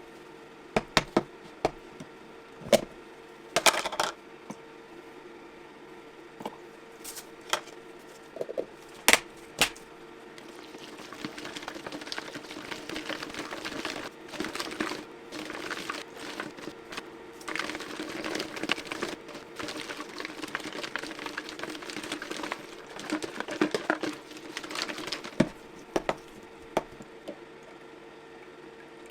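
Sharp clicks and taps of small hard objects being handled, then a stretch of denser scraping and clicking, over a steady hum.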